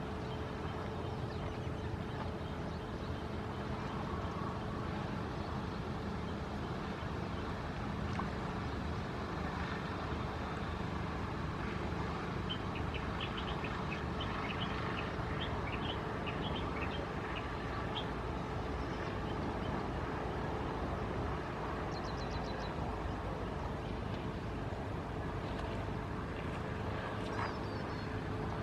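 Steady low background rumble with a constant hum, and a run of quick high-pitched bird chirps about halfway through, with a few more brief chirps later.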